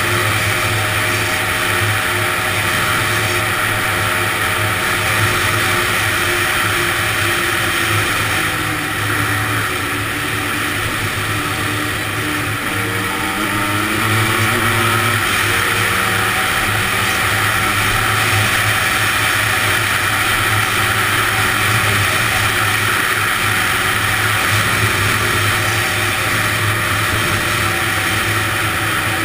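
Honda ATC 250R three-wheeler's two-stroke single-cylinder engine running under way. The revs ease off a little about a third of the way in, then climb back up around the middle and hold steady.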